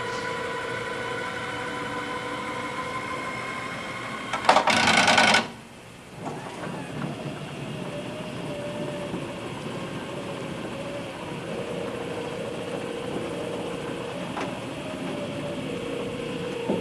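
Electric motor of a van's remote-controlled wheelchair lift and powered side doors running with a steady whine as the lift platform folds up and the doors close. About four and a half seconds in, a loud noisy burst lasts about a second, the loudest thing heard.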